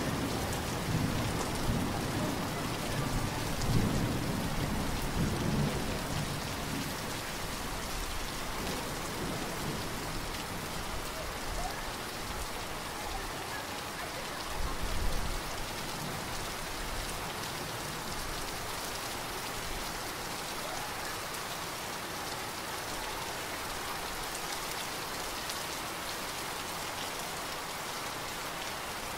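Heavy rain pouring steadily onto standing water, with a thunder rumble dying away over the first several seconds and a brief low rumble about halfway through.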